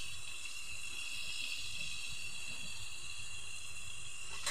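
Steady sizzling hiss of food cooking in a lidded kadai over a low wood fire.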